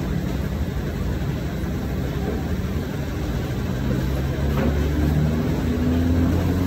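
Steady low engine-like drone, its pitch climbing slowly through the second half.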